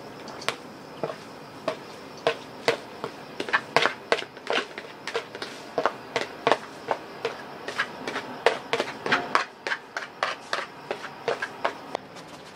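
A spoon knocking and scraping against a plastic basin as chopped greens are pushed out of it into a metal pot: an irregular run of sharp clicks and knocks, several a second, thinning out near the end.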